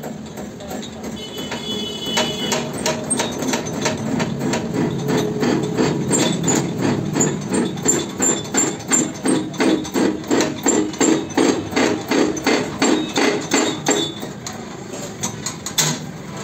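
Hand-pumped hydraulic shop press being worked hard to press a wheel bearing in the hub: a rhythmic clank and creak of the pump lever, about two to three strokes a second, which stops about two seconds before the end. A single sharp click follows near the end.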